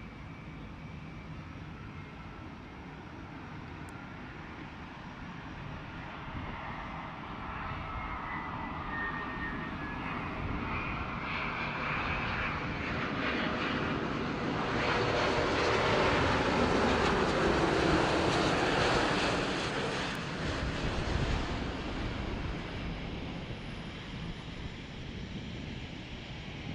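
Airbus A330-900neo airliner's Rolls-Royce Trent 7000 turbofan engines on final approach, with a whine as the jet draws near. It grows steadily louder to a peak as the plane passes close by, then fades as it moves away toward the runway.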